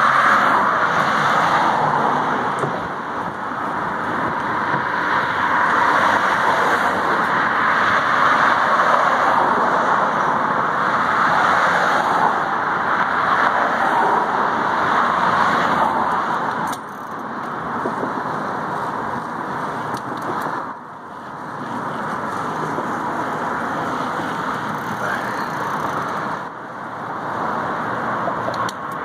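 Steady rushing noise of car traffic on the bridge roadway alongside, dipping briefly a couple of times.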